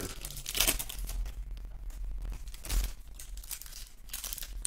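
Foil trading-card packs being torn open and crinkled by hand: several irregular tearing rustles, the loudest a little under three seconds in, over a steady low hum.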